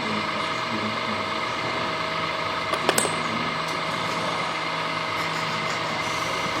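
Steady whine of a radio-controlled model machine's electric motor and hydraulic pump running, with two sharp clicks close together about three seconds in.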